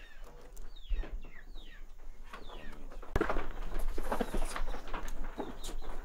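Birds chirping in many short, falling calls, with scattered knocks and rustling.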